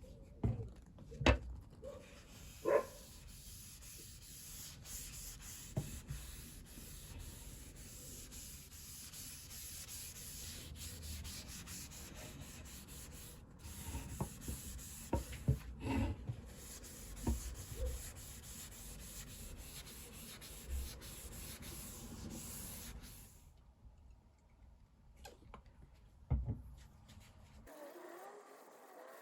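Sandpaper rubbing steadily against the guitar's wooden body or neck, with a few sharp knocks along the way; the rubbing stops abruptly about 23 seconds in.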